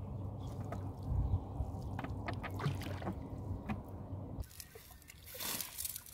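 Wet nylon fishing net being handled on a wooden boat: scattered small clicks and drips over a low rumble. After a break about four and a half seconds in, a short rushing swish as a cast net is thrown.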